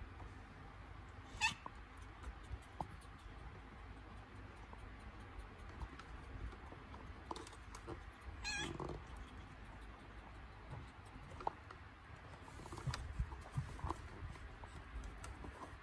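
Domestic cat in labour crying out: a short call about a second and a half in and a longer, wavering yowl a little past halfway.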